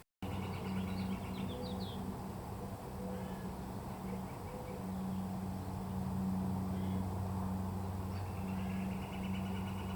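Small birds chirping in short high calls, then a fast even trill starting about eight seconds in, over a steady low hum.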